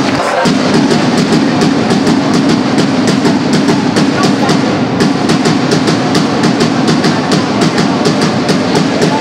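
Drum beating in irregular strokes over a steady crowd din.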